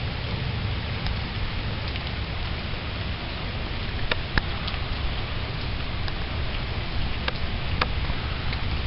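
Steady rain falling, with a low rumble underneath and a few sharp drops striking a hard surface, about halfway through and near the end.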